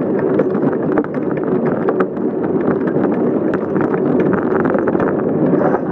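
Wind rushing over the microphone of a phone mounted on a moving bicycle, with the ride's steady rumble and frequent irregular rattling clicks and knocks from the bike.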